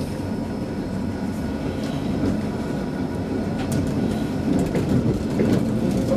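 Matterhorn Gotthard Bahn metre-gauge electric train rolling slowly away from the station, heard from inside the driver's cab: a steady low rumble with a few sharp wheel clicks, growing a little louder near the end.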